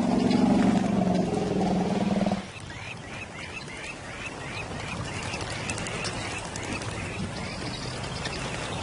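A lion growling low and rough for about two seconds, then a bird calling a run of short repeated chirps, two or three a second.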